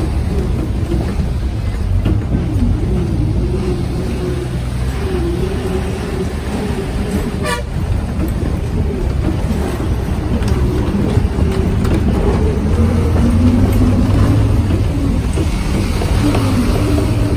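Passenger bus driving along a hill road, heard from inside the cabin by an open window: steady engine rumble and road noise with a wavering engine whine, and a brief rattle about halfway through.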